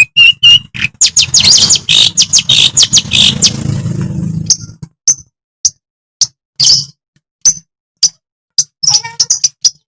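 Long-tailed shrike (cendet madura) singing: a fast, dense run of harsh, chattering high notes for a few seconds, then breaking into separate sharp chips spaced about half a second to a second apart.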